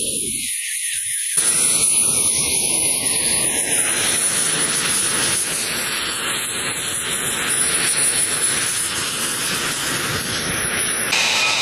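Twin turbofan jet engines of an F-22 Raptor running on the ground at low power: a steady rushing noise with a high-pitched whine. The low rumble comes in fully about a second and a half in.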